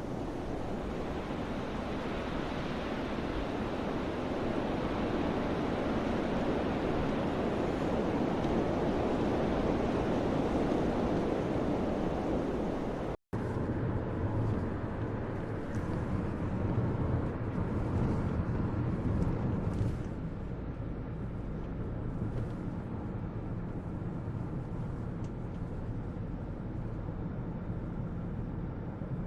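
Strong mountain wind rushing and buffeting the microphone. About halfway through the sound cuts out for an instant, and after that the wind is lower and more rumbling.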